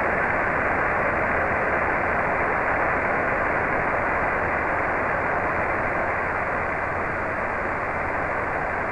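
Falcon 1 first-stage Merlin engine burning, heard through the rocket's onboard microphone as a steady, muffled rushing noise like radio static.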